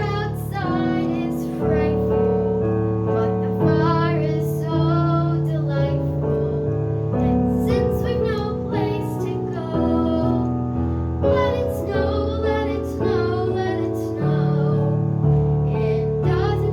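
A child singing a song with piano accompaniment, the voice carrying the melody in phrases over held piano chords.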